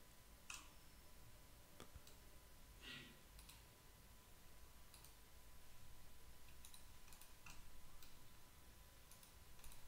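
Faint computer mouse clicks, a few scattered single clicks over near-silent room tone.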